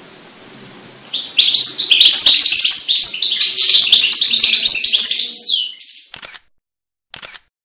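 Caged finch singing a fast song of many short, high notes. The song starts about a second in, runs for about five seconds, then cuts off abruptly.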